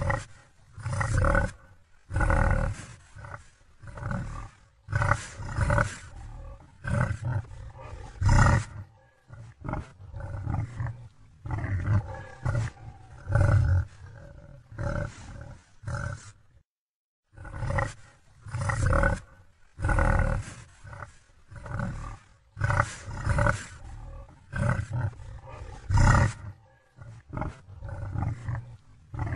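Deep animal growls and grunts, repeated in short irregular bursts of under a second each, broken by a brief silence a little past halfway.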